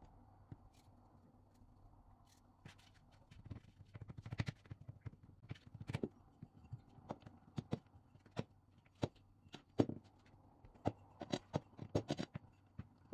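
Irregular light taps and knocks of hands pressing and flattening pie dough on a plastic cutting board, starting a couple of seconds in and clustering in short runs.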